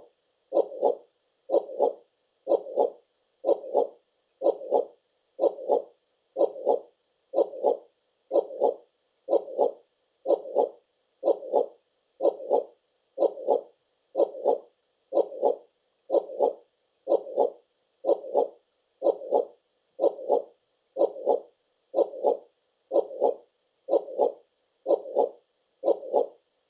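Heartbeat sound: a steady double thump, lub-dub, repeating evenly at about one beat a second (around 60 beats a minute).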